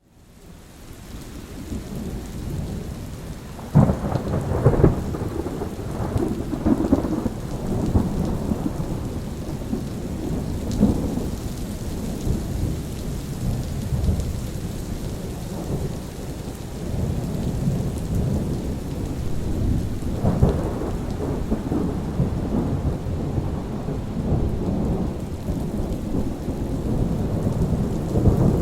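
Steady rain with rolling thunder. The sound fades in over the first couple of seconds, then a sharp thunderclap about four seconds in breaks into several seconds of rumbling, and another rumble swells about twenty seconds in.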